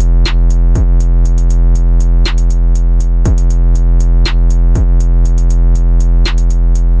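Electronic rap beat with no vocals: rapid hi-hat ticks, deep kick drums that drop quickly in pitch, and a steady low bass.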